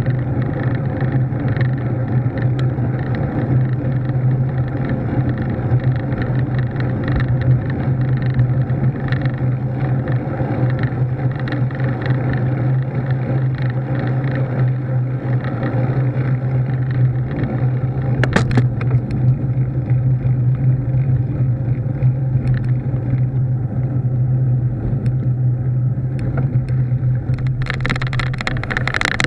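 Steady wind and road rumble on a camera mounted to a moving bicycle, with a constant low hum under it. Near the end a harsher rattle joins in as the bike rolls off the pavement onto grass.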